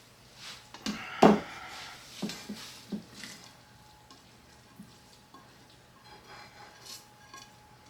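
Kitchen utensil knocking and scraping against cookware: a loud clatter about a second in, a few lighter knocks over the next two seconds, then faint light clicks.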